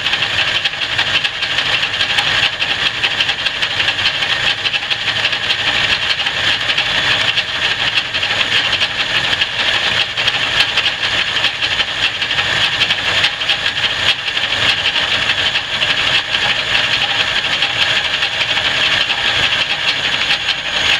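Antique Rockford metal lathe facing a spinning steel flat bar: the steady, even noise of the tool bit cutting across the face, over the lathe running.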